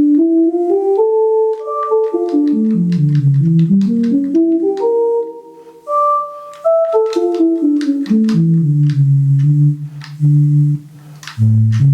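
Travel Sax 2 digital wind instrument playing a melody with its whistle preset, a line of held notes stepping up and down.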